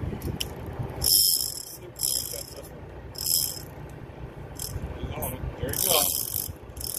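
A fishing reel's clicker ratcheting in short, irregular bursts as line is pulled off, under a steady low rumble.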